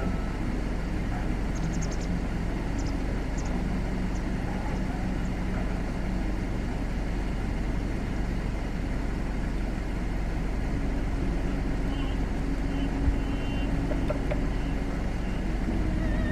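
Steady low rumble of strong wind buffeting the microphone, mixed with a distant engine hum.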